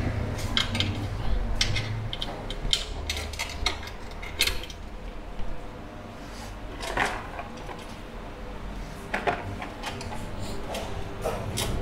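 Tools and metal parts clinking and knocking irregularly as a motorcycle is reassembled by hand.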